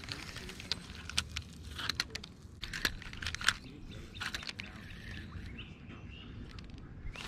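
Spinning reel being cranked on a lure retrieve, with scattered sharp ticks from the reel and handling. A bird chirps briefly about five seconds in.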